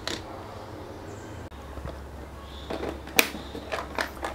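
Faint low hum, then about three seconds in a few sharp clicks and knocks as clear plastic pen cases are handled and set down.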